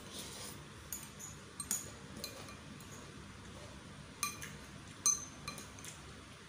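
Metal fork and spoon clinking against a ceramic bowl of chicken noodles while eating. A short slurp of noodles at the start, then a run of sharp ringing clinks, the loudest about five seconds in.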